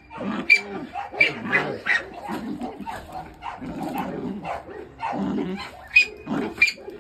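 Young American Pit Bull Terrier growling in short, irregular bursts through a grip on a bite jacket as it tugs.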